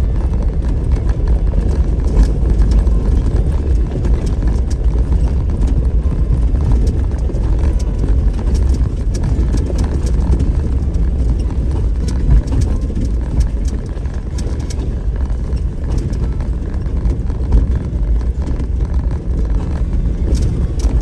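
Off-road vehicle driving over a rough dirt trail: a steady low rumble with scattered knocks and rattles as it goes over bumps.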